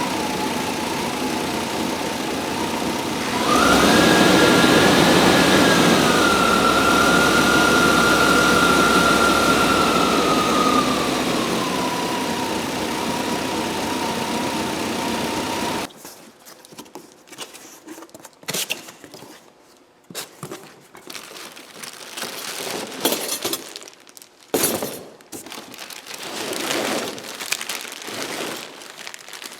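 1995 Chevy Tahoe's throttle-body-injected V8 running rough at a very low idle of about 300 RPM, revved up about three and a half seconds in and easing back down over several seconds, with a steady whine that rises and falls with it. It cuts off suddenly past the halfway point, leaving scattered clicks and rustling of handling.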